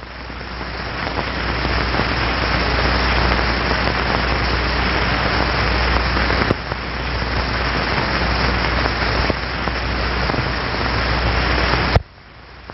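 Jet aircraft roar, a loud, steady rushing noise that swells over the first couple of seconds, dips briefly a little past halfway, and cuts off abruptly near the end.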